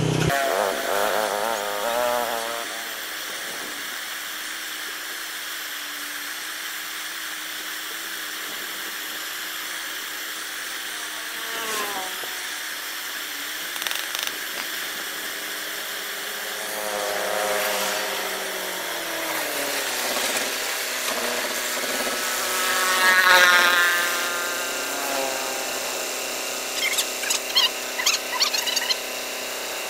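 Hand-tool work on a motorbike ignition coil held in a steel bench vise, over a steady hiss: a couple of sharp knocks in the middle, then quick scraping strokes near the end as the softened resin potting is picked away. A pitched sound swells and fades twice in the background, most strongly a little after the middle.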